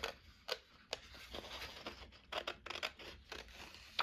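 Paper being handled: a series of short, crisp snips and rustles, several of them bunched together past the middle.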